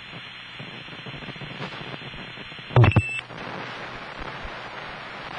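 Steady hiss of an old telephone line's carrier noise on a call recording. About three seconds in comes a loud click with a short high steady tone, then the hiss carries on.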